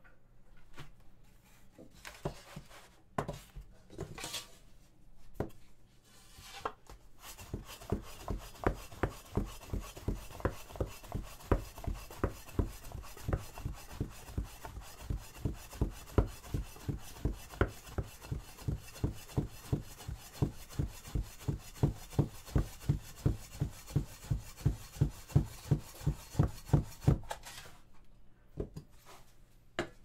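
Soba-kiri knife chopping through folded buckwheat dough onto a wooden cutting board in a steady tonton rhythm, about three strokes a second. A few irregular knocks and handling sounds come first, and the chopping stops shortly before the end.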